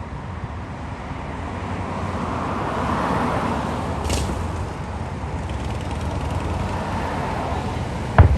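Fireworks show: a steady outdoor rumble, then one sharp, loud firework boom near the end.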